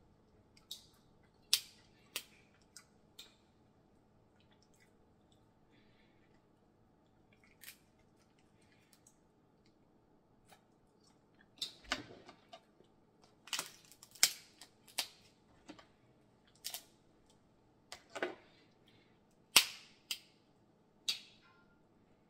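Snow crab leg shells snapped and cracked apart by hand: a string of sharp snaps at irregular intervals, few at first and coming thicker in the second half.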